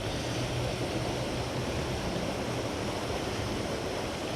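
Steady rushing of creek water, an even noise with no breaks.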